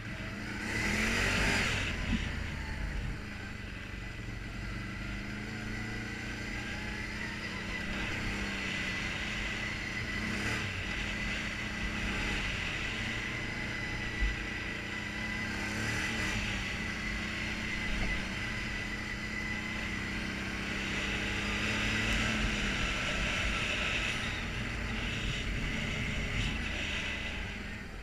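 ATV engine running as it is ridden along a gravel trail, revving up about a second in and climbing again around twenty seconds in, over a steady rush of wind and tyre noise.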